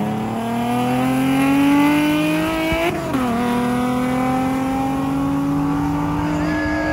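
Sports car engine accelerating hard: its pitch climbs steadily, drops sharply at a gear change about three seconds in, then climbs again more slowly through the next gear.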